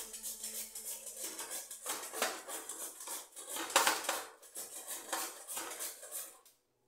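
Rapid, rhythmic metal-on-metal scraping and clinking from a kitchen utensil worked against a steel vessel, with one sharper clank partway through. It stops abruptly near the end.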